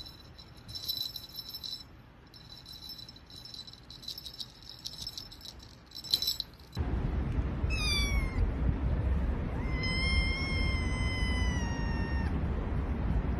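A kitten meows twice over wind rumble on the microphone: a short call falling in pitch, then a longer, high, drawn-out meow that sinks slightly at the end. Before them comes a faint, patchy, high-pitched rattling.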